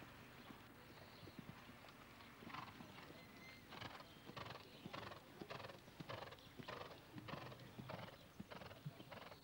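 Show-jumping horse cantering on a sand arena: faint, rhythmic strides, a little under two a second, with a beat that becomes clear about two and a half seconds in.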